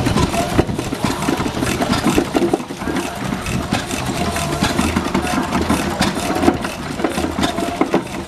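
Vintage stationary engine running, with a quick, uneven beat of firing strokes.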